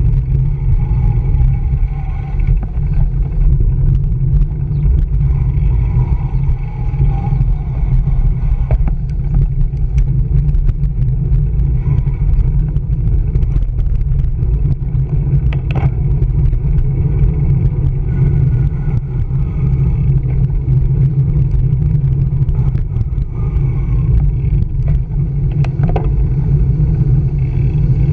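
Steady low rumble of wind and road vibration on a bicycle's handlebar-mounted camera while riding through city traffic, with a couple of sharp clicks about halfway through and near the end.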